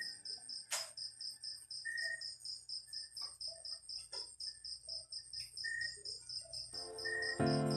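A cricket chirping in a steady rhythm, about four chirps a second, over a steady high insect tone. A few soft electronic keyboard notes are played sparsely, and fuller keyboard chords come in near the end.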